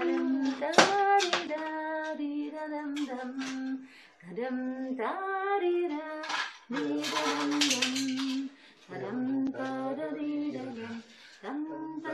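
A woman's voice singing a simple tune in held notes that step up and down, in short phrases with brief pauses between them.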